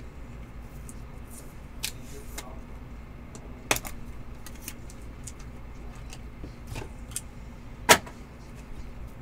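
Trading cards in clear plastic holders handled in the hands, giving scattered light plastic clicks and rustles, with a sharper clack about 4 s in and the loudest one near the end.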